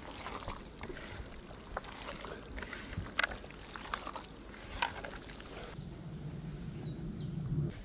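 Wet squelching and squishing of hands kneading raw beef chunks with chopped onion and oil, marinating the meat, in irregular squeezes.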